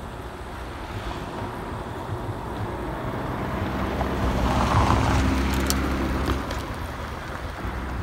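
A car passing close by, its engine and tyres growing louder to a peak about five seconds in and then fading, over wind noise on the microphone of a moving vehicle.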